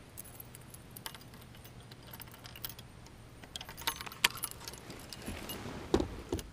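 Light metallic clinking and jingling of fishing tackle being handled: a spinnerbait's blades and hooks and a baitcasting reel, in scattered quick ticks, with a heavier knock near the end.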